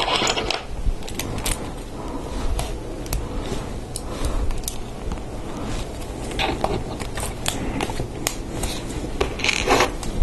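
LEGO Technic plastic parts being fitted together by hand: scattered small clicks and snaps as bushings and axles are pushed into a beam assembly, with a brief scraping rustle near the start and again near the end.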